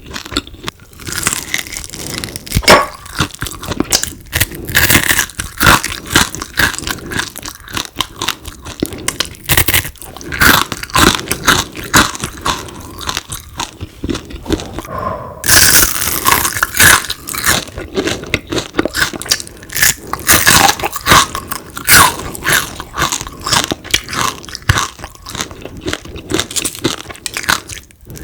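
A person biting and chewing crispy deep-fried frog: a dense, continuous run of crunches and crackles, with a louder stretch about halfway through.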